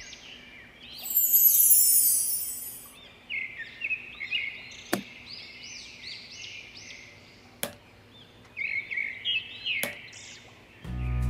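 Small birds chirping in quick, repeated short calls. A high swish falls in pitch about a second in, and there are three sharp clicks later. Music comes in near the end.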